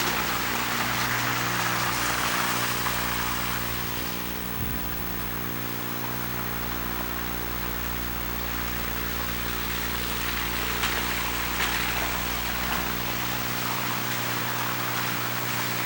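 Steady electrical buzz from a Sony Hi8 Handycam's recording, a low hum with many overtones, under a rushing outdoor noise of wet, snowy streets that fades a few seconds in and swells again past the middle.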